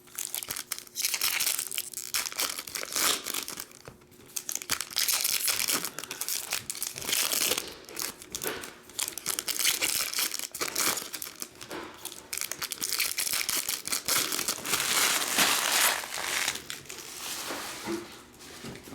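Trading card pack wrappers being torn open and crinkled by hand, in irregular crackling spurts with short pauses.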